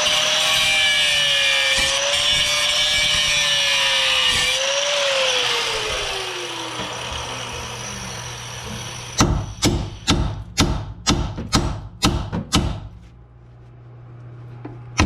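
Handheld power tool cutting the rusted, seized sway bar link, its motor whine wavering under load, then released and spinning down over about three seconds. From about nine seconds in, music with a steady beat of about two strikes a second.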